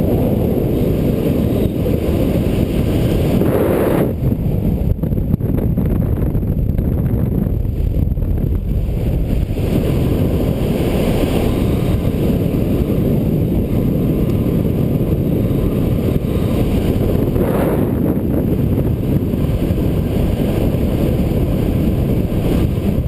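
Loud, steady wind rush buffeting the microphone during a skydive.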